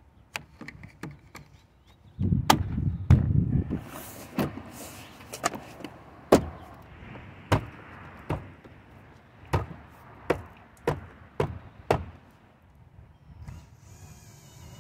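Car door's plastic interior trim being pressed and knocked into place: about a dozen sharp snaps and knocks, roughly one a second, as the trim clips seat, with a rumbling stretch of handling about two seconds in. A cordless drill whirs briefly near the end.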